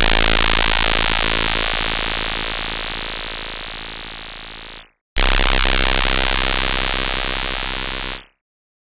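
Two synthesized comedy sound effects, one after the other: a buzzy electronic tone about five seconds long, then a second of about three seconds. Each starts loud and fades, its brightness sliding downward.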